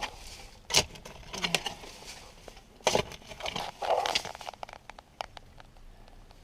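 Digging through soil and rubble: a few sharp strikes with crunching and scraping of debris between them, growing quieter in the last couple of seconds.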